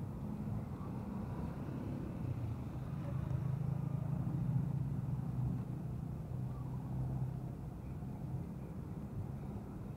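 Low, steady engine hum of passing motor traffic, swelling for a few seconds in the middle and then easing back.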